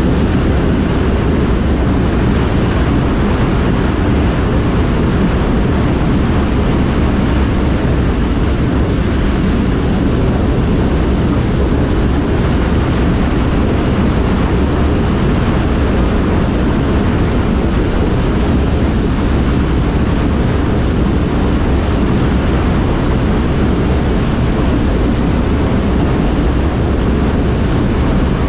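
A 60-inch Orbinox fixed cone valve discharging water at full flow during a flow test: a loud, steady rush of water and spray, heaviest in the low range.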